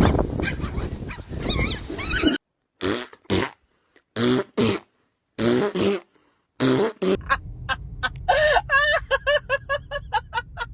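Animal sounds from several short clips spliced together with abrupt cuts, ending in a quick run of repeated pitched calls, about five a second.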